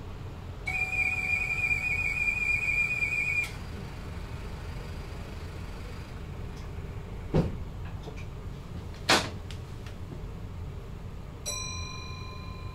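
A high, steady whistle-like tone for about three seconds, then two sharp clicks a second and a half apart, and near the end a steady electronic beep of several pitches begins, all over the low rumble of an electric train's cab.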